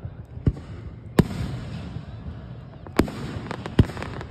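Aerial fireworks going off: four loud bangs spread through the few seconds, with several smaller pops in between near the end.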